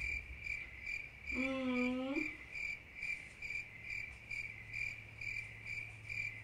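Crickets chirping in an even rhythm, about two to three chirps a second, the comic 'crickets' sound effect for a silent pause. About a second and a half in, a person hums a short note over it.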